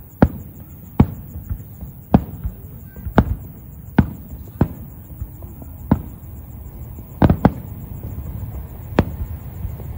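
Aerial fireworks shells bursting in a run of about ten sharp booms at irregular intervals, roughly one a second, with a quick double bang a little past the middle.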